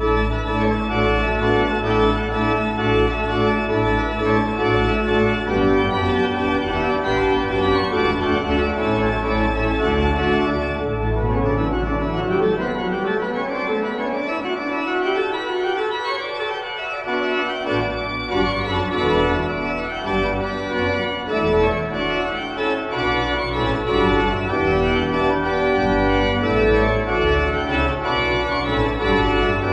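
Church pipe organ playing sustained chords with deep pedal bass notes. The bass drops out for a few seconds midway, then comes back in.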